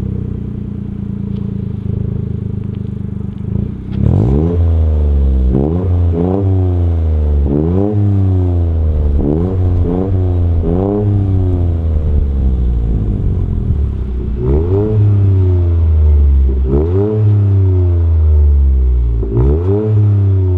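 Toyota GR Yaris's 1.6-litre turbocharged three-cylinder engine heard through a Cobra Sport 3-inch non-resonated GPF-back exhaust with a rear silencer. It idles steadily just after start-up, then about four seconds in it is revved over and over in quick blips, the pitch shooting up and falling back each time, with a few longer revs held later on.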